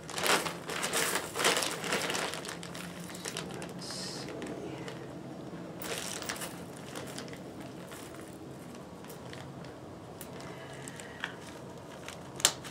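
Hands rummaging through a supply of snap fasteners, with crinkling and rustling that is loudest in the first two seconds, then a couple of sharp clicks near the end.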